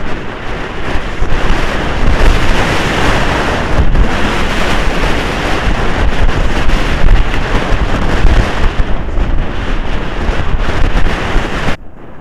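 Loud wind buffeting on a helmet camera's microphone as the rider gallops a polo pony, with a heavy low rumble; it drops away abruptly near the end.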